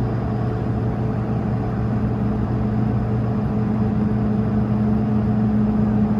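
Steady cabin hum inside an Airbus A220-300 on the ground after engine start: an even rush of air with a few low tones held steady throughout.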